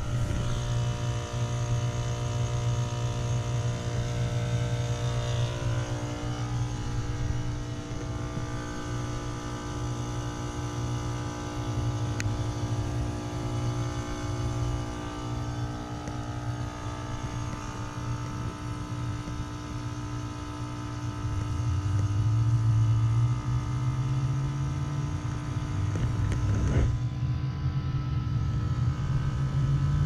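Outdoor unit of a 2006 Heil 3-ton heat pump running with a steady hum made of several held tones. The hum grows a little louder about two-thirds of the way through, and there is a single sharp click near the end.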